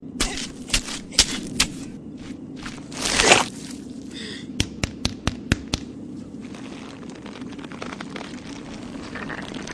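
Dry scraping and thudding of hands digging in parched sand, with a longer rasp about three seconds in, then a quick run of about seven sharp dry cracks, over a steady low drone.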